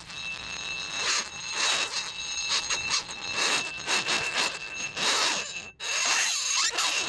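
Warm metal utensil pressed into dry ice, squealing: several steady high-pitched tones over a pulsing scraping hiss as the pressure on the handle rises and falls. The sound drops out briefly near six seconds, then comes back.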